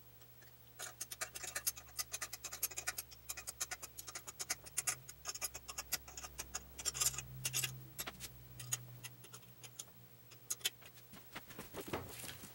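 Metal wrench clicking and scraping on the cylinder hold-down nuts as they are snugged down: quick, irregular clicks, several a second, with short pauses as the wrench is reset.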